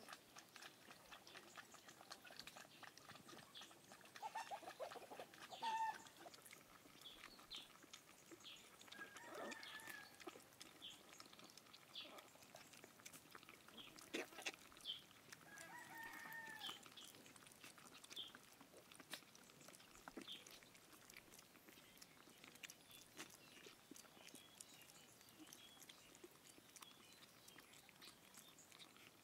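Faint animal calls: a few short squeaky cries that bend in pitch, among soft scattered clicks and rustling.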